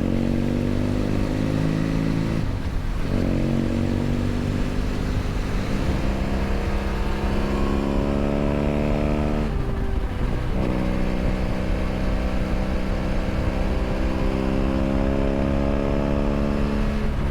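BMW F800 GS parallel-twin engine through a LeoVince LV ONE EVO stainless aftermarket exhaust, heard onboard under acceleration. The pitch climbs steadily in each gear and dips at each upshift: about two and a half seconds in, again around ten seconds, and once more near the end. A low rumble of wind and road noise runs underneath.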